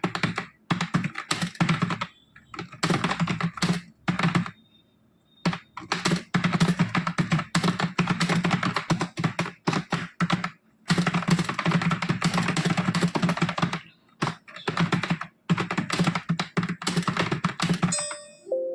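Fast touch-typing on a computer keyboard: rapid runs of key clicks, with a short pause about five seconds in. A short tone sounds near the end, as the timed test finishes.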